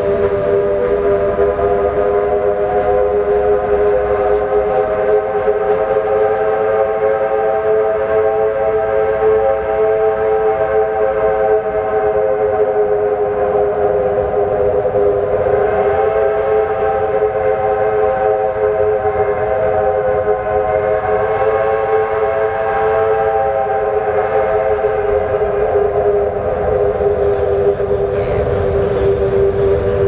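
R class Hudson steam locomotive's whistle held on continuously, several tones sounding together with a slight waver in pitch, over the low rumble of the moving train.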